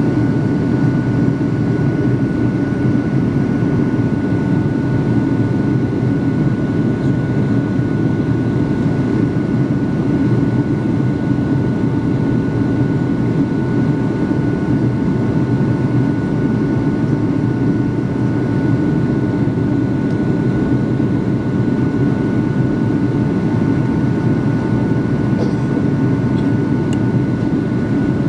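Cabin noise of a Boeing 757-200 jetliner descending on approach, heard from a window seat behind the wing: a steady, even rush of the jet engines and airflow, with a faint steady whine over it.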